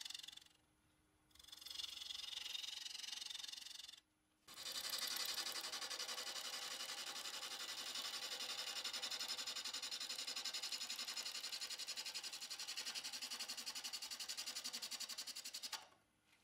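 Ash wood spinning on a wood lathe against a turning tool: a steady hiss with a fast flutter from each revolution, broken off twice briefly near the start as the tool is lifted away, then running on until it stops near the end.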